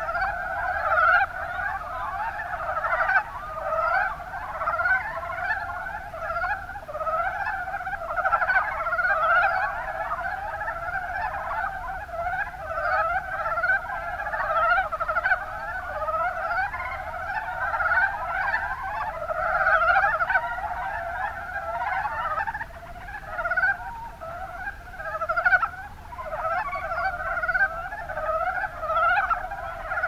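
Dense chorus of mountain brown frogs (Rana ornativentris) calling, short croaking calls overlapping one another without a break.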